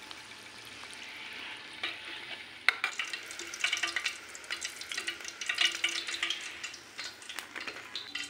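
Battered mushroom pieces deep-frying in hot oil with a steady sizzle. From about three seconds in, a steel slotted spoon clinks and scrapes many times as the pieces are lifted out.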